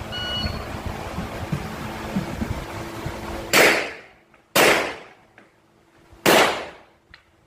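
Three pistol shots from a Rock Island Armory Tac Ultra FS HC, fired singly in the second half, the first two about a second apart and the third nearly two seconds later, each echoing off the indoor range. A short high beep sounds right at the start.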